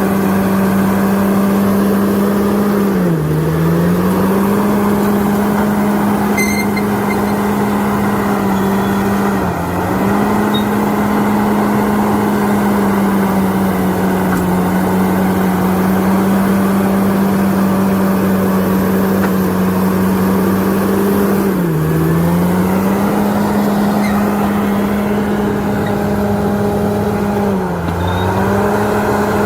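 Diesel engine of a heavy earthmoving machine running steadily at high revs. Its pitch sags briefly four times and then recovers.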